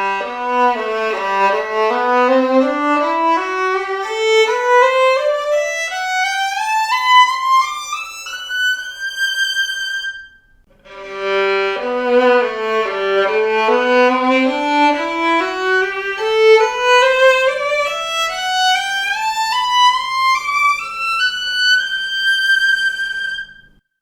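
Violin built on a Guarneri del Gesù model, bowed in a rising scale of single notes that climbs about three octaves from the bottom string. The scale is played twice, with a short pause between.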